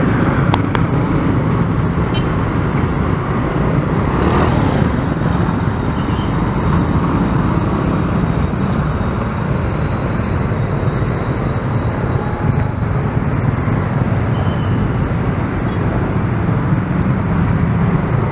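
Steady road traffic noise, mostly motorcycles and cars running, with a strong low rumble.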